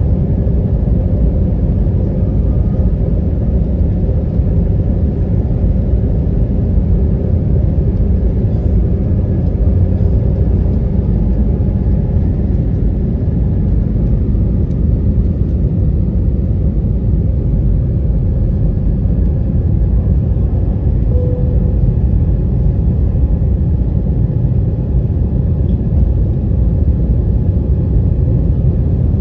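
Cabin noise of a Spirit Airlines Airbus jet on its takeoff roll and climb-out: a steady, loud rumble of the jet engines at takeoff thrust, with a few faint steady hums running through it.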